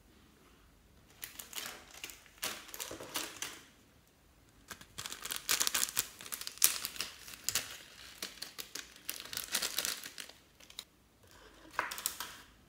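Small zip-lock plastic bag of foam beads crinkling and crackling as it is handled and opened, in three bursts with short pauses.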